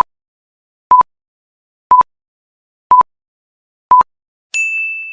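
Countdown-timer sound effect: five short, identical electronic beeps one second apart, then a single higher-pitched ding that fades out, near the end.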